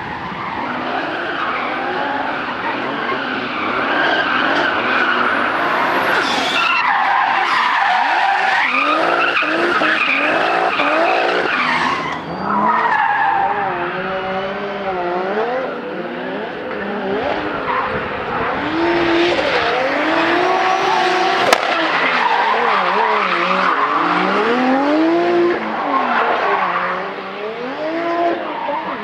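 Drift cars sliding through a corner, their engines revving up and down over and over as the throttle is worked, with tyres squealing continuously.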